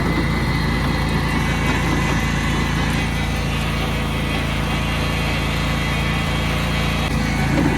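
Engine of an old deckless riding lawnmower running steadily and loudly at close range while it is driven through weeds.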